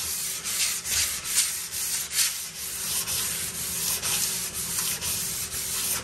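Hand sanding a metal pinball lockbar with 80-grit sandpaper wrapped on a pad: rapid back-and-forth rasping strokes, about two a second, regraining the bar's finish. The strokes stop right at the end.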